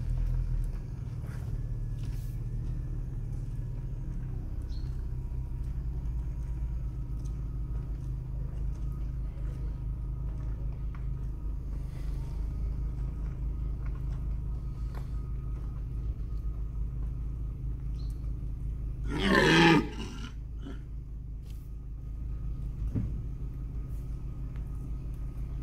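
A red deer stag gives one short, loud rutting roar about three-quarters of the way through. A car engine idles with a steady low hum underneath.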